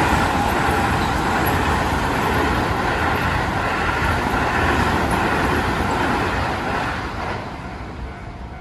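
Keio Line electric train passing close by a level crossing: loud, steady rush of wheels on rail and running gear. It fades away in the last second or so as the train moves off.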